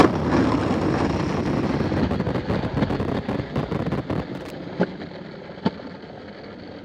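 Skateboard wheels rolling over a concrete sidewalk, a rough rumble that slowly fades away, with two light clacks near the end.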